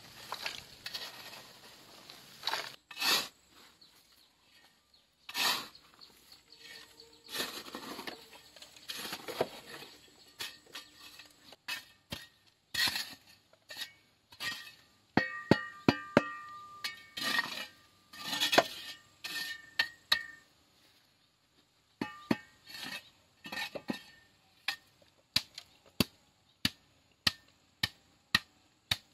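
A series of sharp knocks and taps at irregular intervals, several in the middle ringing briefly with a clear tone, then a steady run of knocks about two a second near the end.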